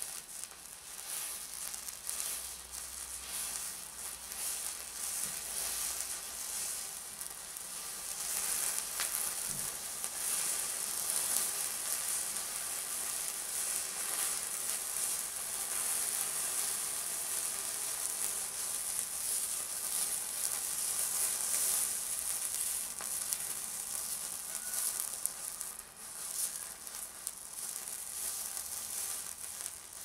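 Thermite burning in a heap on a steel padlock: a continuous fizzing, sizzling hiss. It grows louder about a quarter of the way in and eases off toward the end.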